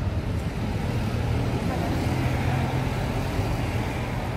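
A motor vehicle engine running with a steady low hum and road noise, swelling slightly toward the middle.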